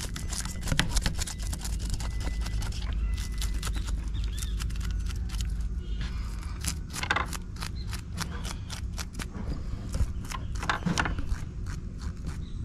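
A handheld fish scaler scraping the scales off a whole fish on a wooden board, in quick, irregular strokes. A steady low rumble runs underneath.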